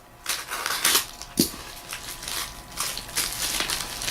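Shipping bag being opened and handled, with irregular crinkling and rustling and a small thump about a second and a half in.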